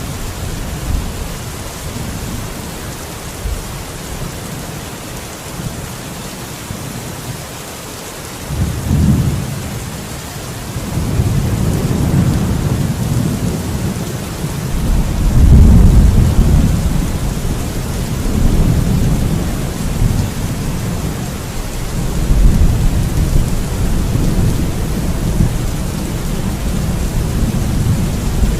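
Steady rain hissing, with rolling thunder. The rumble sets in about a third of the way through, is loudest near the middle, and keeps rumbling on and off to the end.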